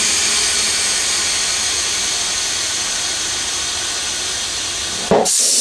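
Compressed air hissing steadily into a motorcycle tyre through a valve stem with its core removed, inflating the tube to seat the tyre bead. The hiss cuts off briefly with a short knock about five seconds in, then starts again brighter.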